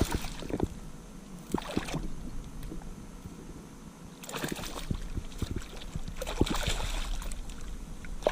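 Handling noises in a kayak with a freshly caught trout: a few knocks against the hull, then from about four seconds in a stretch of splashing and rustling water noise.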